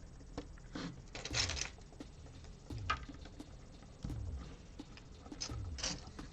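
Small plastic Lego pieces being handled and sorted: scattered light clicks and rattles of bricks against each other and the tray, with a few soft thumps.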